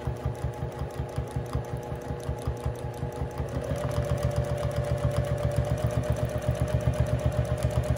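Sewing machine free-motion quilting through a quilt, the needle stitching in a fast, even rhythm over a motor hum. It speeds up slightly about three and a half seconds in.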